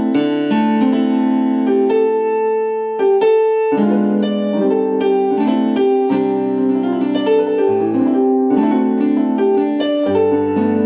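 Piano-voiced keyboard playing a slow chord progression, the chords changing every second or two with a moving top line: a passing-chord progression leading to the 4 chord.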